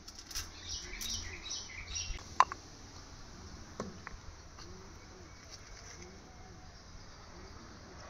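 Birds chirping several times in the first two seconds over a low background hum, with a single sharp click about two and a half seconds in and a fainter one near four seconds.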